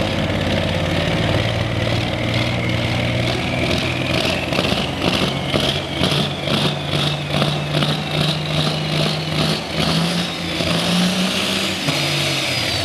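Super/pro stock pulling tractor's diesel engine running hard under load, with a turbocharger whistle rising in pitch over the first half. Through the middle the sound pulses evenly, about three times a second.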